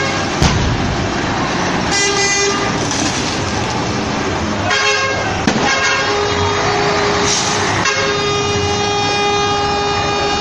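Truck horns blaring in repeated blasts, the last a long steady one from about eight seconds on, over a continuous noisy rumble. A sharp crack comes about half a second in.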